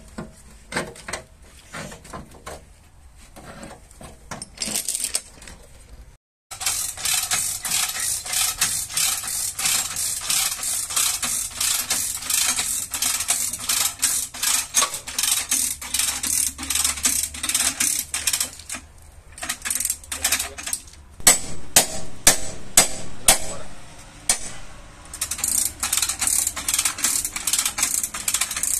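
Rapid metallic clicking of a ratchet as a chain puller hooked to the bent front frame rail is drawn tight, with scattered clicks at first and a run of louder clicks about three quarters through.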